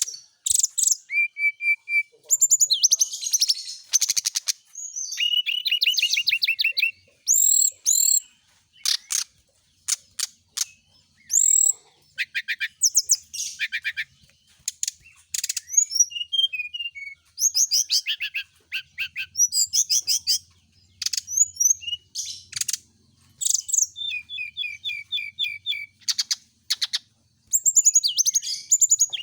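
Brown-chested jungle flycatcher singing: a varied run of short high chirps, quick trills and sweeping whistled notes in bursts with brief pauses.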